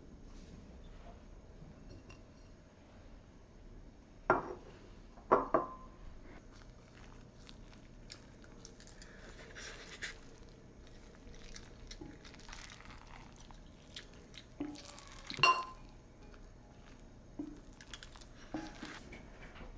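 Rice paddle scooping and stirring cooked pot rice in an enamelled cast-iron pot, with soft scraping throughout. Sharp clinks against the pot, three about four to six seconds in and a loud one about fifteen seconds in.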